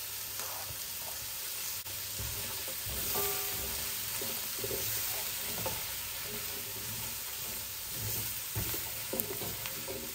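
Chopped carrots, celery, onion and minced garlic sizzling in a hot stainless steel pan as they are stirred with a silicone spatula, with irregular soft scraping strokes over a steady sizzle. The burner has just been switched off, so the sizzle comes from the pan's remaining heat.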